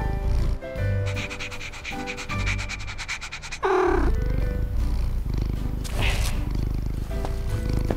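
Cartoon cat purring in a steady low rumble, with a short falling call just before four seconds in and a brief rustle near six seconds, over light background music.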